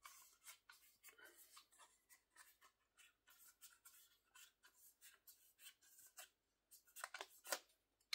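Faint rustling and scraping of a stack of glossy photo cards and their paper sleeve being handled, in many short strokes, a few louder near the end.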